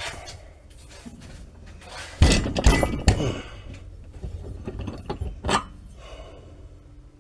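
Metal being hammered: three or four heavy ringing blows in quick succession about two to three seconds in, then lighter knocks and clinks.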